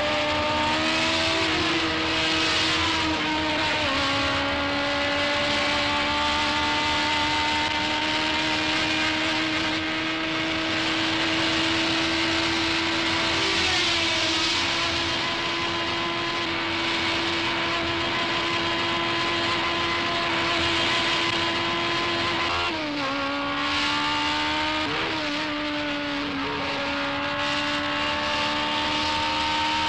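Onboard sound of a 1980 Formula One car's Ford-Cosworth DFV V8 at racing speed, a steady high engine note held long between a few gear changes. About two-thirds of the way through, the note drops sharply in a quick run of downshifts under braking, then climbs again.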